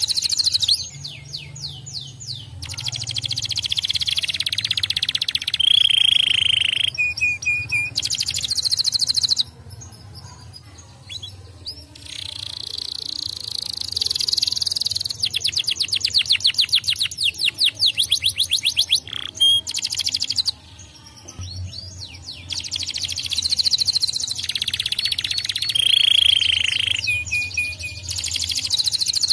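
Domestic canary singing: long phrases of rolls and trills, one a fast, evenly repeated trill midway, broken by two short pauses.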